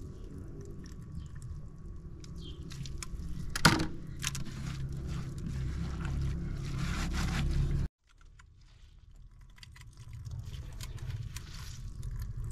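Pomegranate arils being squeezed and crushed by hand in a perforated metal colander, wet squelching with juice trickling and dripping through into the pot below. A single sharp knock stands out about four seconds in, and the sound drops out abruptly just before eight seconds, then resumes more quietly.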